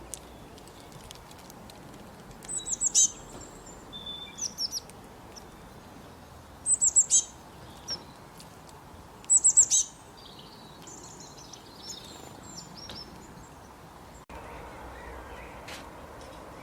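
A small songbird singing: three loud phrases of quick, high, falling notes a few seconds apart, with softer chirps and chatter between them.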